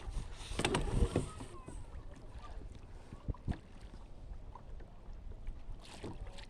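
Wind rumbling on the microphone, with a few sharp knocks near the start and two more about three and a half seconds in.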